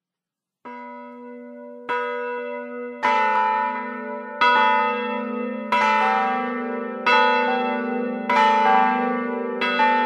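Church bells ringing: a stroke about every second and a quarter, each one ringing on under the next so the sound builds into a full peal. It starts about half a second in, quiet at first, and grows louder over the first three strokes.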